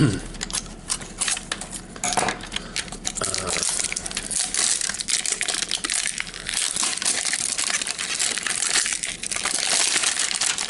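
Crinkly packaging wrapper of a toy capsule being torn, unwrapped and handled: a dense run of crackling and rustling, busier and louder in the second half.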